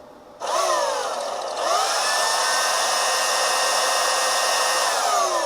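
Electric power sander switched on, dipping in pitch briefly, then running at a steady high speed and starting to wind down near the end.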